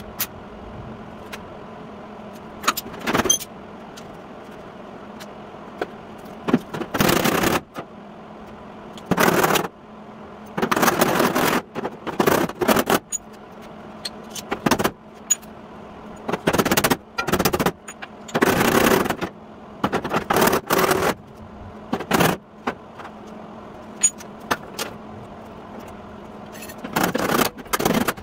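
MIG welder tacking sheet steel on a rusted truck fender: a string of crackling bursts, each from a fraction of a second to about a second long, with short pauses between, over a steady faint hum.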